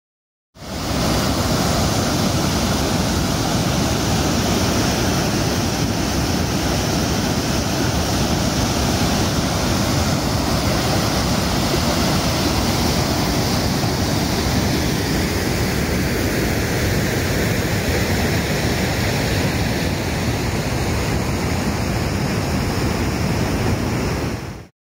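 Loud, steady rushing water with no distinct drops or strikes, starting about half a second in and cutting off just before the end.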